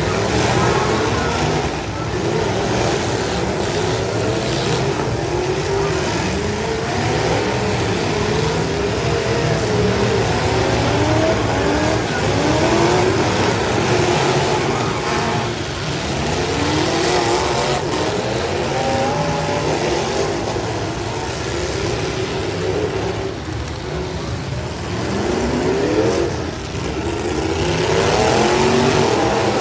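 Several V8 demolition derby cars' engines revving hard over and over, their pitch sweeping up and down as they ram and push one another.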